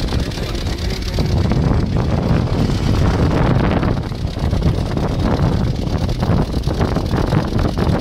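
Steady engine and road rumble of a vehicle driving along a winding road, with wind buffeting the phone's microphone.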